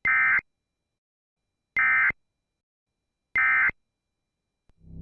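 Emergency Alert System end-of-message tones: three short, buzzy bursts of SAME digital data, evenly spaced about a second and a half apart, marking the end of the alert. A low rumble starts to swell just before the end.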